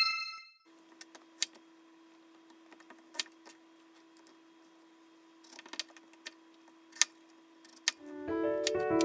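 Faint scattered clicks and light knocks of small objects being handled, over a steady low hum. A short ringing chime fades out at the start, and piano background music comes in near the end.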